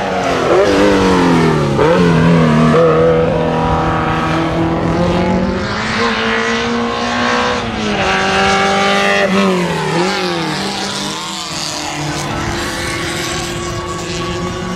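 Race car engine running on the circuit. The revs drop and climb about a second in and again near ten seconds, and hold fairly steady in between.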